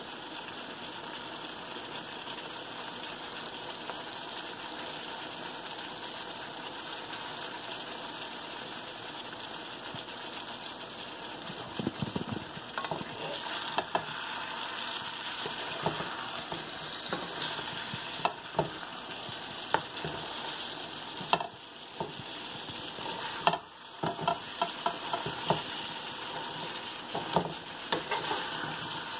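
Vegetables and pork sizzling in a metal pan, a steady frying hiss. From about twelve seconds in, a wooden spatula scrapes and knocks against the pan as the food is stirred.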